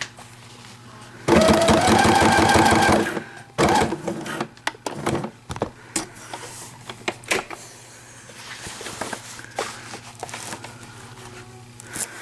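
Electric sewing machine stitching hook-and-loop tape onto a cloth diaper in one run of about two seconds, its motor whine rising slightly in pitch. Light clicks and handling noises follow as the fabric is repositioned under the foot.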